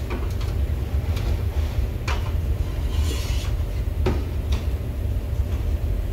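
Workshop background noise: a steady low rumble, with a few light knocks and a short hiss about three seconds in.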